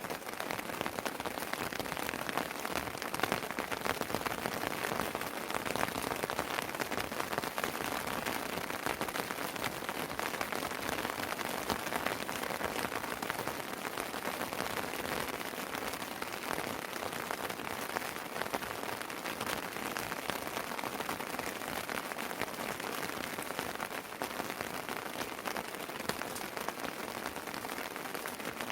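Steady rain falling on and around a house terrace: an even hiss of rainfall dotted with the pattering ticks of individual drops.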